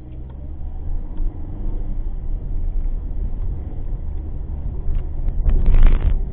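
Car driving, heard from inside the cabin through a dash cam: a steady deep rumble of engine and road noise that grows louder over the first second, with a brief louder rush of noise near the end.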